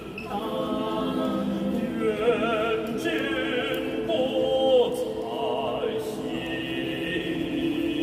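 Mixed choir singing sustained chords, with voices wavering in vibrato over the held harmony.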